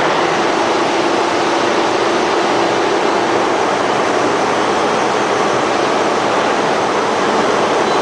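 Ring rolling mill running steadily, a loud, even mechanical rush as a red-hot steel ring is rolled between its rolls. A steady hum under it stops about three and a half seconds in.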